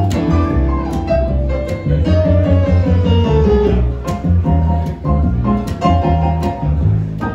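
Live trio music led by a plucked double bass playing a steady line of low notes, with plucked guitar-like notes and light regular ticks above it; the trombone is not sounding.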